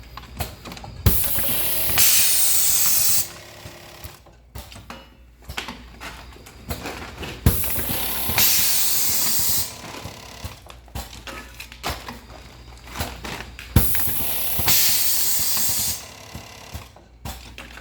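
Stand-up pouch packaging machine running through its cycle three times, about every six seconds: a sharp clunk, then about two seconds of loud hissing air, then lighter mechanical clicking until the next cycle.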